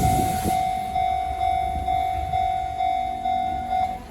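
Japanese railway level-crossing alarm ringing in a steady, quickly repeating tone while an Enoden train rumbles and clacks over the crossing; the alarm stops just before the end. A hiss fades out about half a second in.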